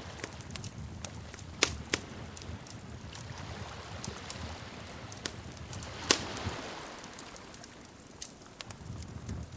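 Wood fire crackling in a fireplace, with a steady low rumble of flame and a scatter of small ticks. Sharper pops stand out about a second and a half in, just before two seconds, and the loudest about six seconds in.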